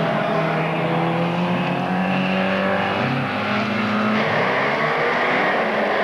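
Several folkrace cars racing on a dirt track, their engines running hard at high revs. Their overlapping engine notes rise and fall as the drivers work the throttles.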